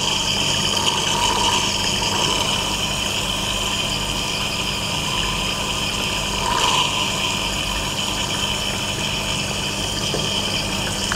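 Water aspirator on a sink tap running steadily, tap water rushing through it into the sink with a steady hiss. It is drawing the vacuum for a Büchner funnel filtration, pulling the crystals dry.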